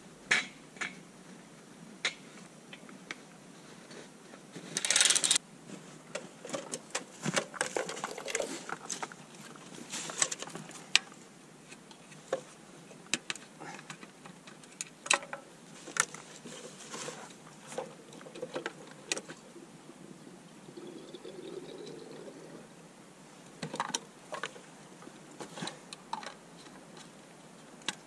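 Irregular clicks, taps and knocks of a chainsaw and a plastic fuel can being handled in the snow, with a longer rustle about five seconds in. The saw's engine is not running.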